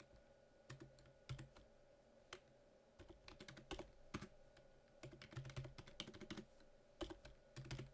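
Computer keyboard typing: irregular single keystrokes at first, then quicker runs of keys in the second half, over a faint steady hum.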